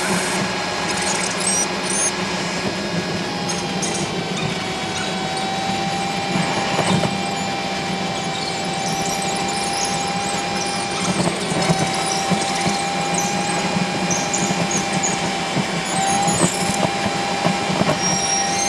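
A machine running with a steady high whine over a low hum, with scattered light clicks and rattles.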